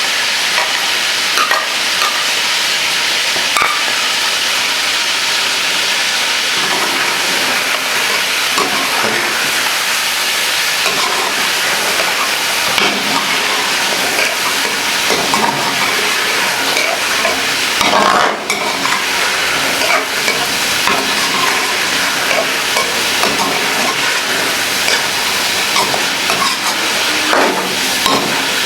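Chicken pieces frying in hot oil with freshly added ginger-garlic paste, a steady sizzle, with scattered scrapes and knocks from stirring in the pot.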